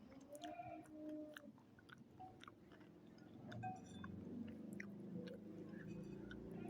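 Faint close-miked chewing and mouth sounds of someone eating instant spaghetti carbonara, with scattered small clicks.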